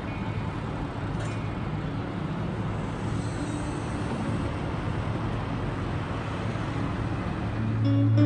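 Steady road traffic noise, a continuous rush of passing vehicles. Background music with plucked guitar fades in near the end.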